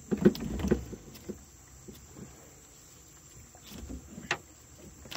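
Handling knocks and low thumps in a small boat while a hook is worked out of a toadfish's mouth by hand. They come in a cluster in the first second, with a sharp click about four seconds in. A steady high insect whine runs behind.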